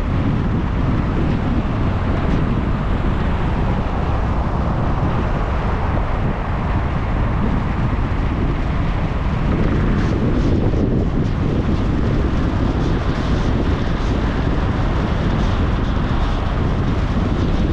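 A moving vehicle's steady running noise under heavy wind buffeting the microphone.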